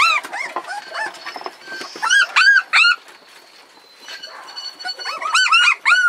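Three-week-old sled-dog puppies whining in short, high squeals: a couple at the start, three around two seconds in, and a quick run of them near the end. The pups are hungry and crying for milk.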